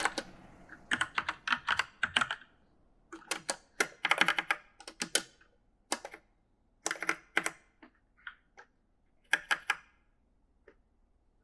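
Uneven typing on an E-Element mechanical gaming keyboard: quick runs of several keystrokes broken by short pauses. The keys fall mostly silent in the last second and a half, apart from one faint click.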